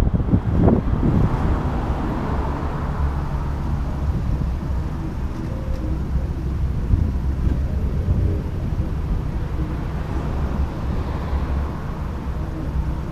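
Car running slowly, heard through a microphone fixed to the outside of the body: a steady low rumble of engine, road and wind noise, with heavy wind buffeting on the microphone in the first second.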